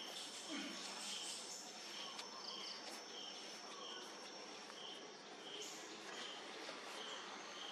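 Forest insects calling: a steady high-pitched drone with a short chirp repeating about every two-thirds of a second, over a soft hiss of background noise.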